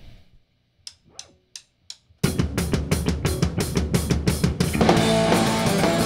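Four quick clicks counting the song in, then a rock band crashes in loudly on the first beat with a driving drum kit beat, bass and guitar.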